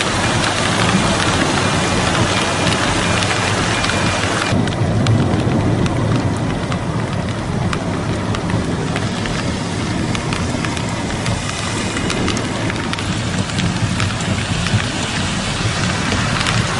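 Steady noise of heavy rain with a low storm rumble. The sound changes abruptly about four and a half seconds in, when the higher hiss drops away.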